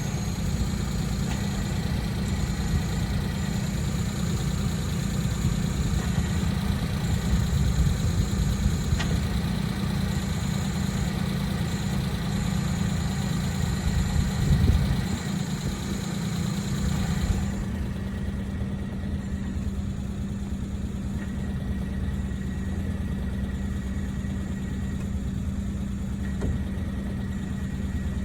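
Suzuki Jimny JA11's three-cylinder engine idling, with an abnormal clutch-area noise that has survived the release bearing being replaced with a new one twice. The engine runs steadily throughout, and about two-thirds of the way in the thin high whine drops away and the sound turns duller.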